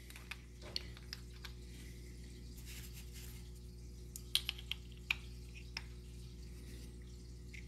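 Faint scattered clicks and taps of wooden grip scales being handled and fitted by hand onto the metal frame of a Whitneyville .30 rimfire pocket revolver, a few sharper ones a little past halfway, over a low steady hum.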